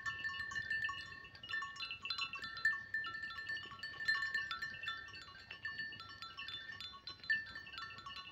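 Metal bells on grazing livestock ringing in an irregular, overlapping jangle of several high tones.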